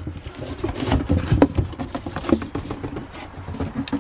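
Handling of a cardboard box and plastic-wrapped parts: irregular rustling, scraping and small knocks throughout.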